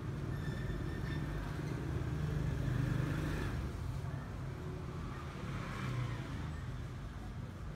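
Street traffic noise: a steady low rumble, with vehicles passing that swell about three seconds in and again about six seconds in.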